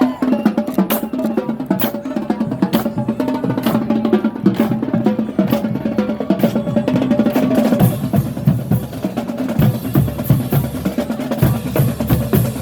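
Marching band percussion playing a fast drum passage: snare drum rolls and rapid strikes with bass drum hits, the low drum hits growing heavier near the end.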